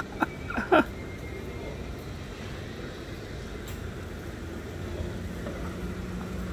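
City street ambience: a steady hum of traffic, with a low engine drone from a vehicle coming in about five seconds in. A couple of short, sharp sounds stand out in the first second.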